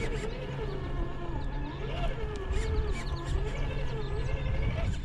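RC crawler's electric motor and geared drivetrain whining, the pitch rising and falling as the throttle is worked, over a low rumble with scattered small clicks.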